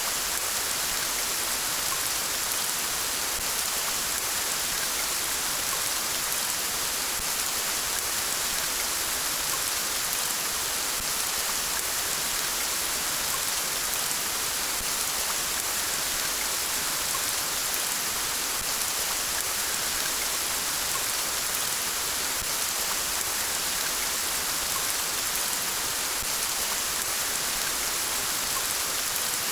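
Steady rain falling, an even, dense hiss of drops that does not change.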